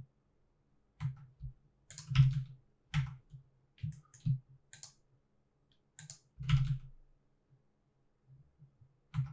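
Computer keyboard clicking in scattered, irregular keystrokes, with the loudest taps about two seconds and six and a half seconds in.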